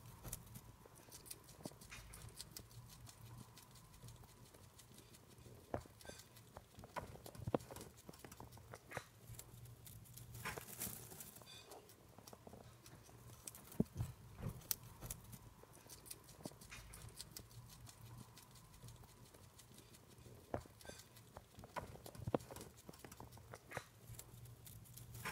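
A hamster gnawing and chewing a piece of raw carrot: faint, irregular crunching clicks.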